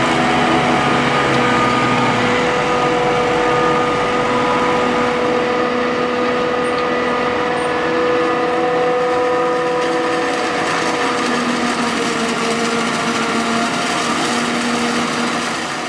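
A machine running steadily with a whine: several held tones over a rushing noise, the tones shifting slightly in pitch now and then.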